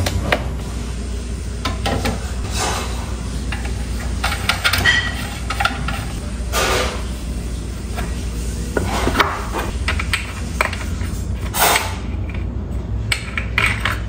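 Plastic parts of a 1990s Electrolux desk fan being handled and fitted together by hand: scattered clicks, taps and short scrapes of plastic, over a steady low hum.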